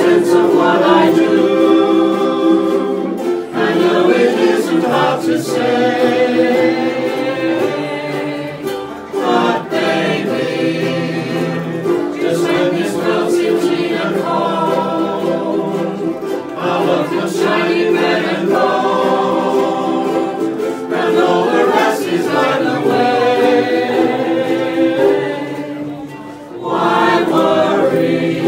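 A ukulele ensemble strumming chords while a group of voices sings along. The music dips briefly near the end, then comes back in.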